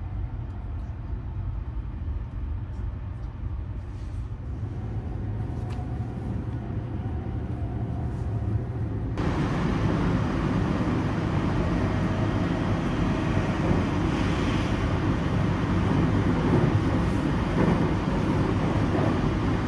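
Steady rumble and hum inside a carriage of the Sunrise Express sleeper train, with no speech. About nine seconds in it turns suddenly louder and hissier.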